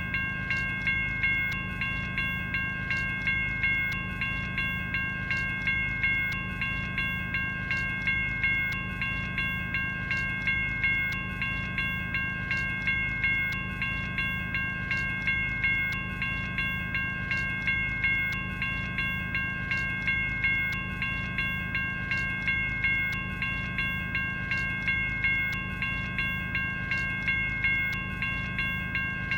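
General Signals Type 1 electronic railroad crossing bell ringing, a steady run of even, repeating strikes, each one fading before the next.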